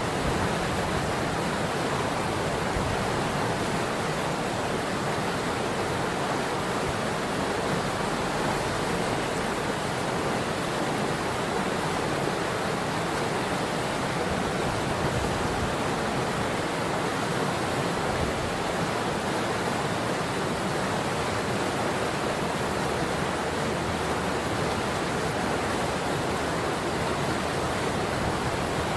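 River water rushing steadily over its bed, an even, unbroken hiss.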